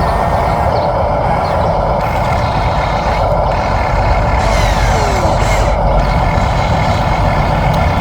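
Remote-controlled construction machines running, a steady mechanical whirring and humming of their motors and gears.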